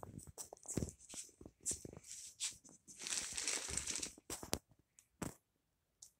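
Rustling, crinkling and light clicks of movement around a wire dog crate, with a denser rustle about three seconds in and a single dull knock about five seconds in.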